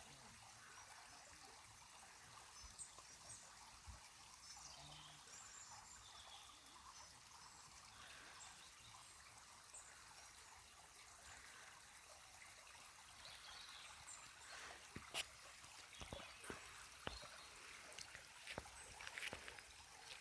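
Near silence: faint, steady outdoor hiss, with scattered soft clicks and knocks in the last six seconds or so.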